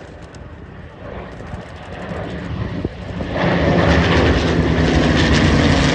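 Propeller aircraft engine growing louder as the aircraft approaches, becoming much louder about three and a half seconds in as it passes close.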